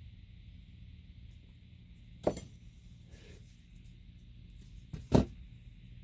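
Two sharp clacks of hand tools being handled on the workbench while wire is stripped, the second louder, with a fainter knock between them, over a steady low hum.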